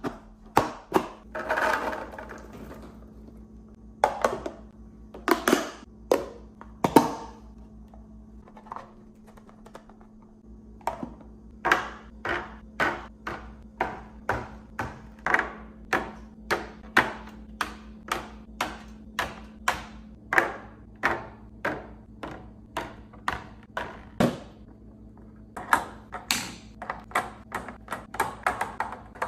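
Items being set down one after another while a refrigerator is stocked and organized: short knocks and clinks of containers, at first scattered, then in an even run of about one or two a second, over a steady low hum.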